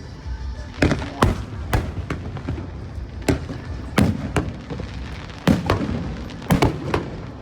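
Aerial fireworks bursting: about nine sharp bangs at irregular intervals, some in quick pairs, over a steady low background rumble.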